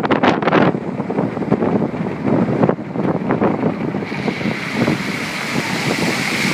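Floodwater rushing, with wind buffeting the microphone in irregular gusts; about four seconds in it settles into a steady hiss.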